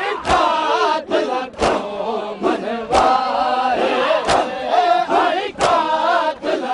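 A crowd of men chanting a noha together while beating their chests in unison (matam). The massed slaps land about every 1.3 seconds, five times in all.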